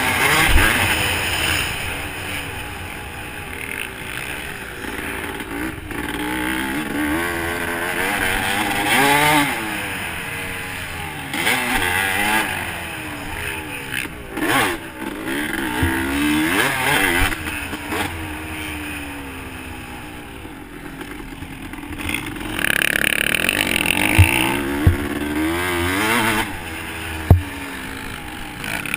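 Dirt bike engine heard close up from the bike, its pitch rising and falling again and again as the throttle is opened and closed around a motocross track. A few sharp knocks near the end.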